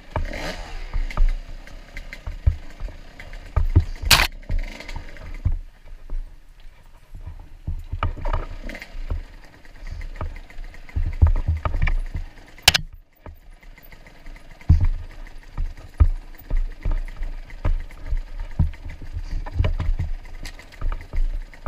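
Enduro dirt bike riding rough forest singletrack at low speed: the engine note falls in the first second, and frequent thumps and rattles come from the suspension and chassis over bumps and roots. Two sharp cracks stand out, about four seconds and about twelve and a half seconds in.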